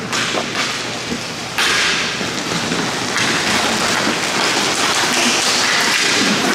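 Hockey play on the rink: a rushing hiss of skates and play that rises suddenly about a second and a half in, with a few knocks of sticks and puck.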